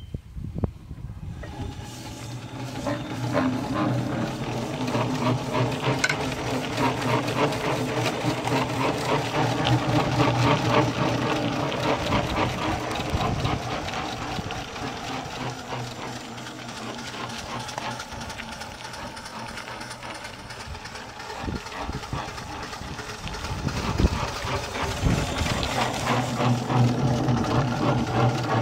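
3-inch scale twin-cylinder live-steam traction engine running under steam: rapid exhaust beats and hiss over a low steady hum. It builds up about two seconds in, eases off through the middle and picks up again near the end.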